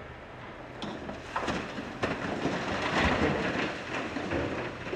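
Blasted rock pouring out of a wheel loader's side dump bucket into a metal tipper trailer body: a rumble with knocks of stones that builds about a second in, peaks around three seconds and eases off near the end. Underneath is the steady running of the Volvo L260H loader's diesel engine.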